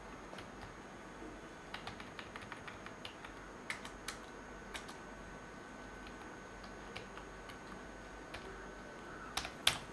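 Faint computer keyboard keystrokes, a few scattered, irregular taps at a time.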